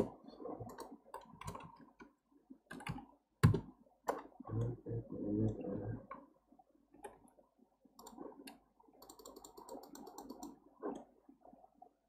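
Computer mouse button clicks and keyboard key taps: a scattering of short, sharp clicks at irregular intervals, with the sharpest one about three and a half seconds in. A few duller low sounds come between them around the middle.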